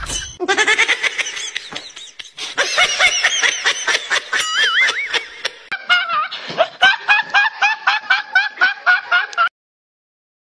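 A teenage boy laughing uncontrollably in high-pitched bursts. The laughing settles into a quick, even run of about three laughs a second and then cuts off suddenly.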